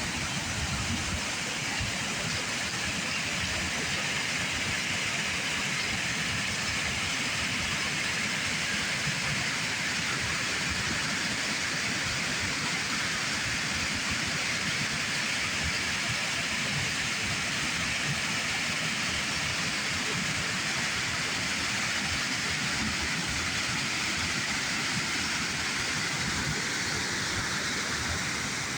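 Waterfall rushing steadily: an unbroken wash of falling water with no distinct events.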